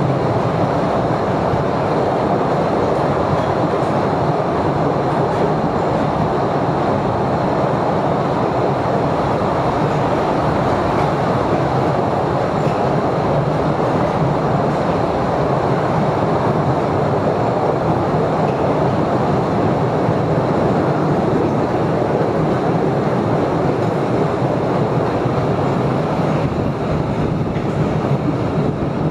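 Postojna Cave's tourist train running steadily through the cave passages, its wheels and carriages rattling on the track, heard from on board.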